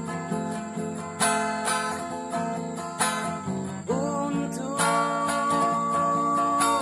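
Acoustic guitar strummed in an instrumental stretch of a song. About four seconds in, a long held sung note slides up and sustains over the chords.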